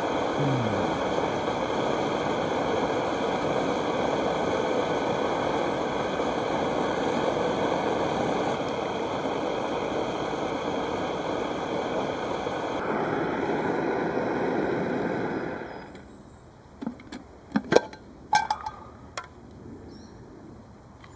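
Vintage Primus pressure stove burning with a steady roar while heating water for coffee. It is shut off about fifteen seconds in, and a few short clinks and knocks follow.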